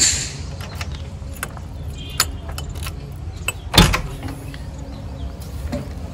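An engine running steadily at a low, even pitch, with scattered metallic clicks and rattles and one loud knock about four seconds in.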